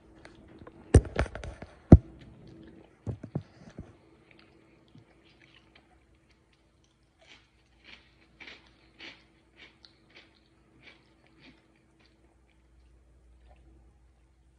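Someone chewing a crunchy cookie close to the microphone, in short crunches. A few loud sharp clicks or knocks come in the first few seconds, and the crunches are fainter and come about every half second in the second half.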